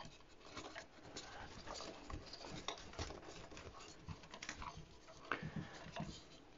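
Faint, scattered small clicks and rustles of hands working thin sensor wires and a rubber screen-door spline into a groove cut in a wooden 2x4.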